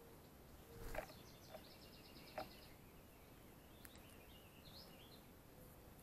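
Faint woodland songbirds: a quick high trill of about ten notes, then a few high chirps near the end. A soft knock about a second in and a click shortly after are the loudest things.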